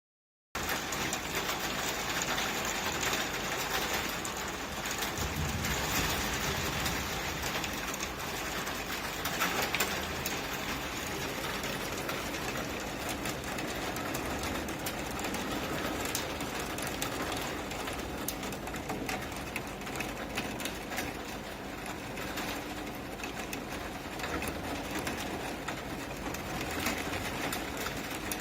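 Heavy thunderstorm rain pouring steadily, a dense fast patter of drops on hard surfaces.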